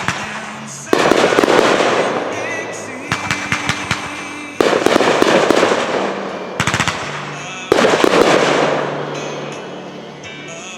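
Aerial fireworks going off: three loud bursts, each fading over a couple of seconds with crackling, and a quick run of sharp pops just before each burst. Music plays faintly underneath.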